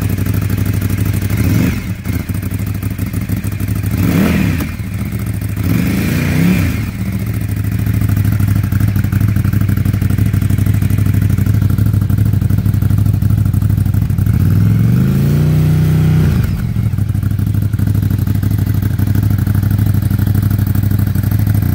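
Ducati Scrambler 1100's air-cooled L-twin engine idling steadily through an Arrow Pro-Race slip-on exhaust. There are three short throttle blips in the first seven seconds and a longer rev that climbs and drops back to idle about 15 seconds in.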